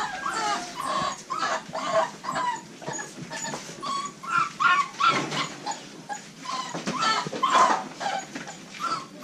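American Bully puppies whimpering: a quick, continuous string of short, high whines.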